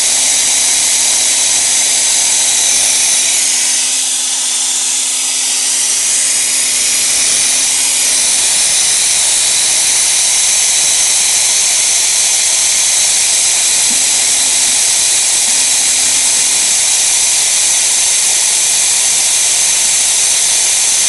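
Cold gas-dynamic spray gun hissing steadily as its compressed-gas jet blasts metal powder onto a steering rack shaft to build up the worn seal seat. A faint steady hum under it stops about eight seconds in, with brief returns later.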